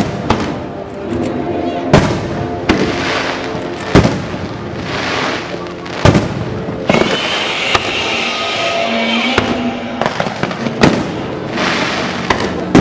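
Aerial fireworks bursting: loud bangs every second or two, with crackling between them.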